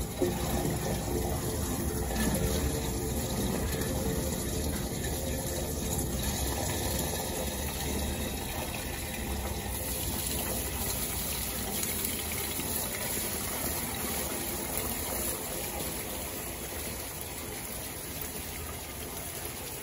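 Water pouring down a downpipe into a NeeRain rooftop rainwater filter and splashing steadily onto its mesh screen, gradually getting quieter over the second half. There is a brief sharp knock right at the start.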